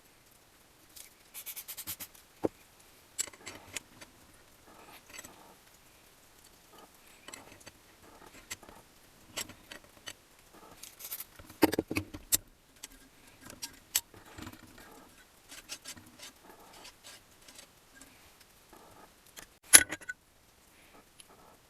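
Metal engine parts and hand tools clinking, clicking and rattling as they are handled, with a quick rattle about a second in and a sharper knock near the end.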